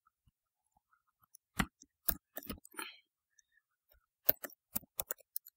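Computer keyboard keys being typed: two short runs of light clicks, one about a second and a half in and another from about four seconds in.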